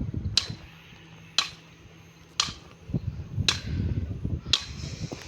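Chopping at wood with a metal tool: sharp, ringing strikes about once a second, with low rustling underneath in the second half.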